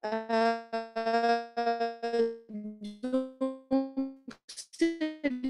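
Keyboard music: a melody of short, piano-like notes, each striking and fading, about three a second, starting abruptly out of silence.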